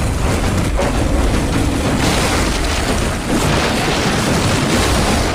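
Loud, dense explosion sound effects from an animated series, with music underneath. There is a short dip in level about three seconds in.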